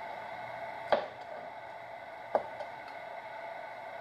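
A kitchen knife knocking twice on a cutting board while cutting boiled beef tendon, with a few fainter ticks of the blade, over a steady background hum.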